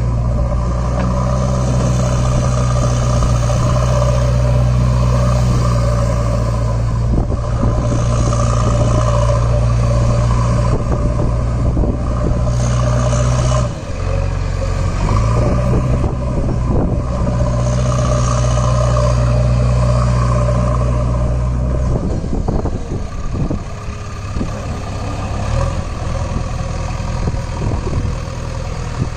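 A heavy diesel engine running steadily at a low idle. Its note dips and changes briefly about 14 seconds in and shifts again around 22 seconds in. Irregular scraping and clatter are heard in the later part.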